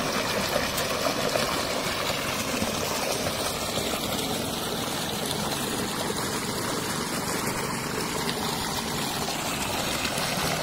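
Water gushing steadily from a rusted irrigation pipe outlet, splashing onto a stone and into a channel.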